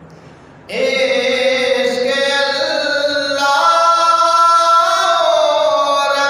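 A man sings an Urdu manqabat unaccompanied. After a short pause, a long drawn-out line begins about a second in, held on one breath, its pitch rising slightly and then easing back down.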